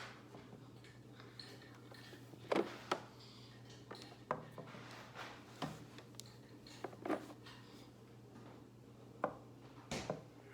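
Toy farm animals and play pieces knocking and clicking against each other and a surface as a child handles them: several short, sharp taps at irregular intervals.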